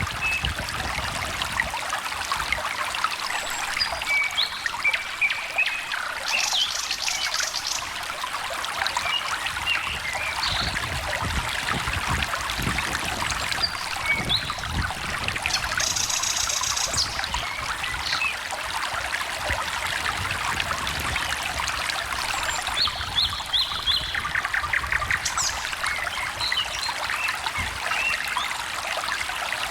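A small stream trickling steadily, with songbirds calling over it: scattered short chirps and a few rapid high trills.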